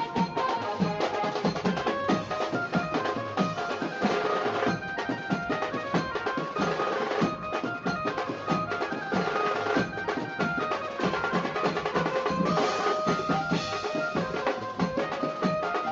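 Background music with a steady, driving drum beat and sustained melody.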